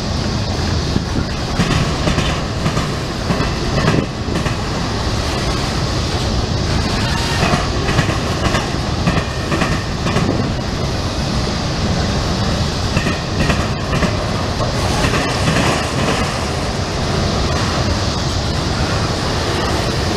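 Norfolk Southern freight train's boxcars and autorack cars rolling past: the steady noise of steel wheels on the rails, with a run of clacks as the wheel trucks cross rail joints.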